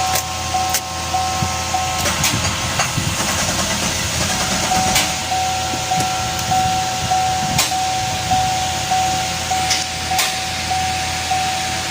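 Electronic beeper sounding a short steady tone about twice a second, stopping for about two seconds and then resuming, over a low rough rumble and scattered sharp clicks.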